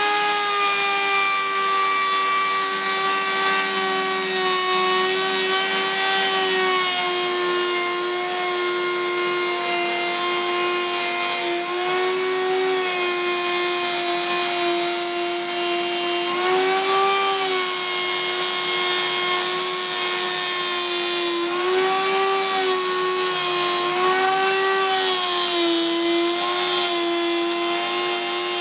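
Plunge router, mounted under a table, running with a large tongue-and-groove tongue cutter as it mills a tongue along the edge of a pallet plank. The motor's steady high whine wavers in pitch several times as the wood is fed through the cutter.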